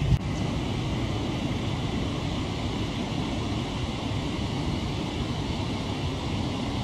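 Steady rushing outdoor background noise with a low rumble, broken by one short click just after the start.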